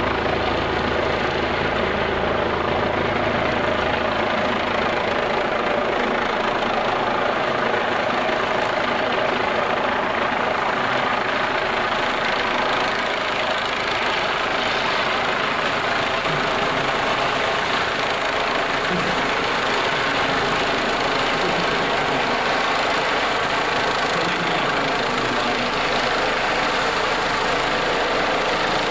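Medical helicopter descending to land, its rotors and turbine engines making a steady drone with a constant whine.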